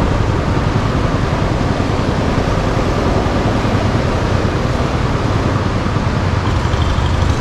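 Narrow motorboat's engine running steadily as the boat travels along the underground river, with the rush of water and air.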